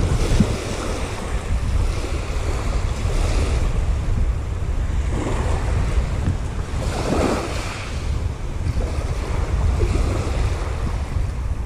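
Wind buffeting the microphone with a heavy low rumble, while small waves wash onto a shingle beach, swelling up a few times.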